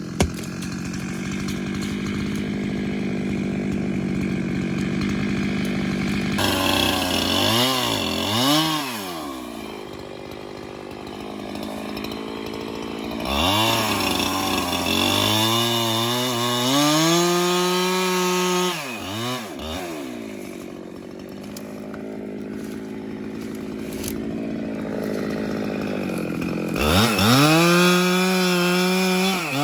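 Two-stroke chainsaw cutting wood: the engine runs steadily at first, then revs up and drops back several times, with a long high-revving stretch about halfway through and another rev near the end.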